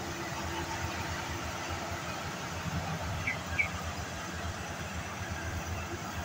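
Rice combine harvester's engine running steadily, with two short high squeaks about halfway through.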